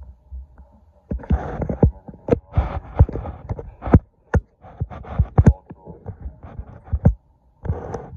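A red wrist-and-finger grip handle on a cable pulley being worked through repetitions: a run of sharp clunks and knocks, irregular, one to several a second, with short hissing rustles near the start and near the end.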